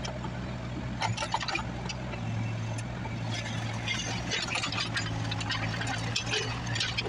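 Bobcat 331 mini excavator's diesel engine running steadily while the machine tracks over broken concrete, with scattered clinking and crackling of rubble that grows busier from about three seconds in. The hydraulic rock hammer is raised and not striking.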